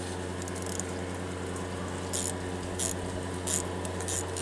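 Electric car-type fuel pump running with a steady hum while priming a Ford 3-cylinder diesel's fuel system. In the second half there are four short hissing spurts, about two-thirds of a second apart, as air and fuel are let out at the fuel filter's bleed screw.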